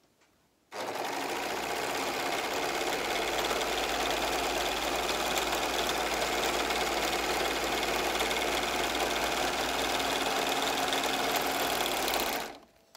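Singer four-thread overlock (serger) machine running at a steady speed, stitching through sequined fabric. It starts abruptly about a second in and stops just before the end.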